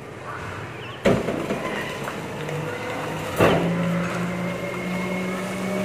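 Volvo FE 300 rear-loader refuse truck at work: two sharp bangs as rubbish goes into the rear hopper, about a second in and again past the middle. From about halfway, the engine speeds up to a steady hum that rises slightly in pitch, to drive the rear compactor.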